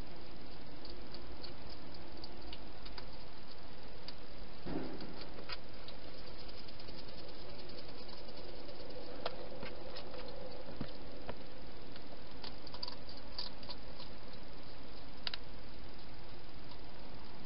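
A wild hedgehog rustling and eating inside a clear plastic feeding box: irregular small clicks and ticks that come thicker in the second half, with one duller rustle about five seconds in, over a steady hiss.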